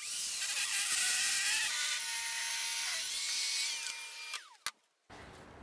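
Table saw ripping a rough white oak board into strips: a steady high-pitched whine and hiss from the blade cutting, which fades out after about four seconds, followed by a single click.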